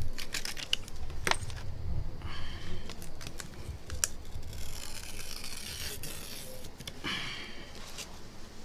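Hand work on a phone screen: sharp clicks of small tools and parts being set down, with several stretches of scraping or rustling.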